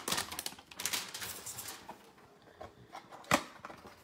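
A quick run of light, sharp clicks and taps for about two seconds, then a few faint ticks and one louder single click a little past three seconds in.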